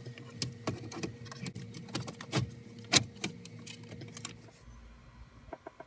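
Hard plastic dash trim being handled and pressed into place around a car stereo head unit: an irregular run of clicks and knocks, the loudest about three seconds in.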